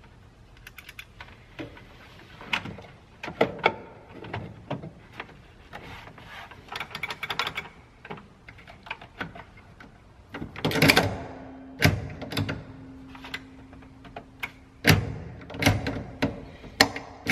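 Irregular clicks, knocks and clatter of hard console trim and shifter hardware being handled and fitted around a car's floor shifter, with a louder clatter about two-thirds of the way through. A faint steady hum comes in at that point.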